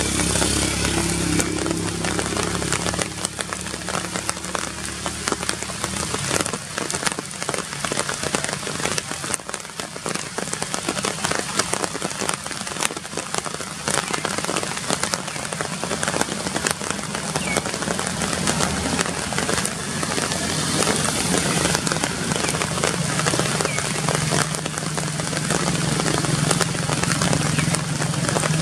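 Rain falling on forest leaves: a dense, steady patter of drops. A low steady hum sits under it at the start and again over the last several seconds.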